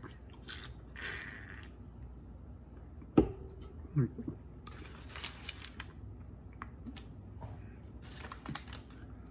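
Sipping from an aluminium drink can, then a single sharp knock a little after three seconds, like the can being set down on the table. Two spells of crisp rustling follow as the food is handled.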